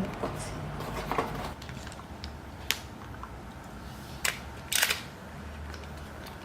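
Plastic toy parts clicking and clattering as they are handled: a sharp click about two and a half seconds in, another about four seconds in, and a short rattle just after.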